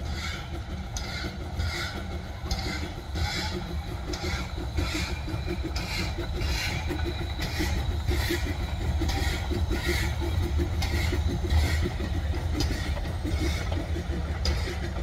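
1887 Krauss steam tram locomotive working under steam, its exhaust chuffing in a steady rhythm of about two beats a second over the low rumble of the train on the rails, growing louder as it comes closer.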